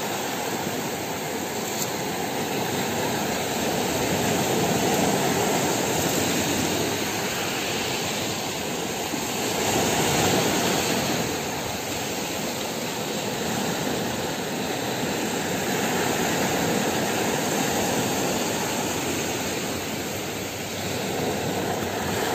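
Small waves breaking and washing up a pebble beach: a continuous rush of surf that swells and eases every five seconds or so.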